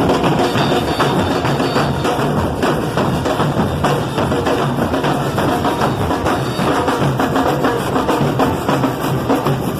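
A band playing with brass and a full drum kit, bass drum and snare keeping a steady beat.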